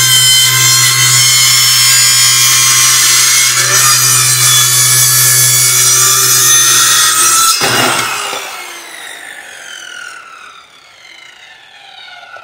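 Corded circular saw running and cutting through a wooden board. About seven and a half seconds in, the cut ends and the motor cuts off, and the blade spins down with falling whines that fade away.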